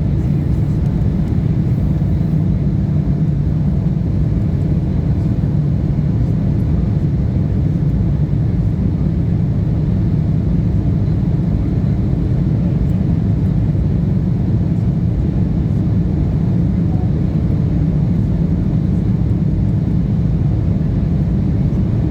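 Airliner cabin noise during a departure: a steady, loud low rumble of jet engines and rushing air that does not change.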